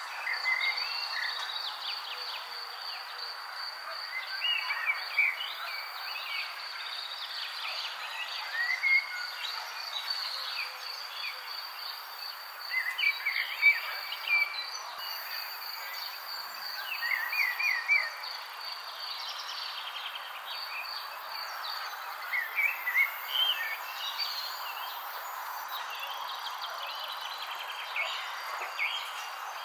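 Nature ambience: insects trilling steadily in a fast, even, high pulse, with birds chirping in short bursts on and off throughout.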